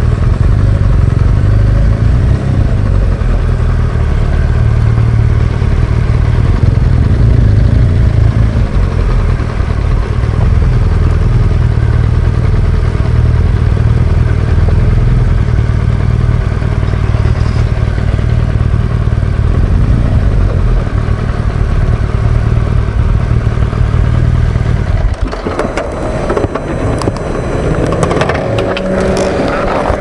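Motorcycle being ridden: the BMW R1200GS Adventure's boxer-twin engine running under steady heavy rumble, with wind on the microphone. About 25 s in, the rumble drops away and scattered clicks and a few steady tones follow.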